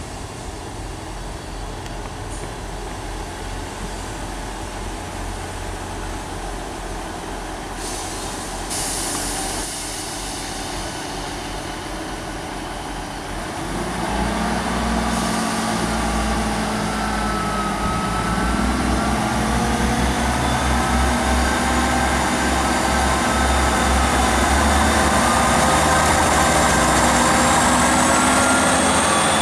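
Class 158 diesel multiple unit idling at the platform, with a short hiss about eight seconds in. About fourteen seconds in its diesel engines open up as it pulls away, and a rising whine builds as it gathers speed past.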